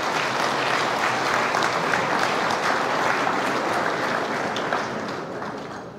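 Large audience applauding, a dense patter of many hands clapping that dies away over the last second or so.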